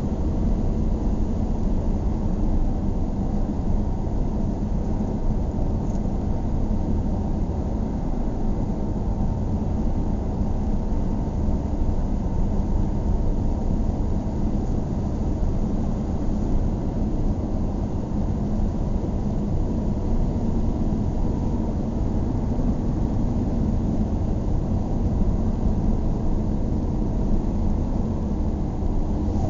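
Steady rumble of a car driving, heard from inside the cabin: low engine and road noise with no gear changes or other events.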